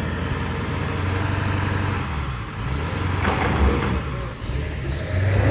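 Pickup truck engine running steadily under load while it pulls a stuck car on a tow strap, with a brief harsher surge of noise about three seconds in.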